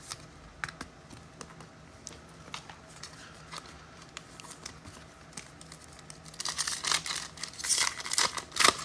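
Light scattered clicks of cards being handled, then about six seconds in a louder crinkling and tearing as a foil trading-card pack wrapper is ripped open.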